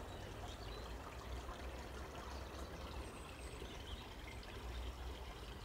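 Faint, steady background noise: an even hiss over a low rumble, with no distinct event.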